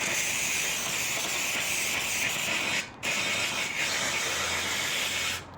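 Aerosol brake cleaner sprayed onto a bicycle's hydraulic disc brakes in two long, steady hissing bursts with a short break between them. The can is nearly empty.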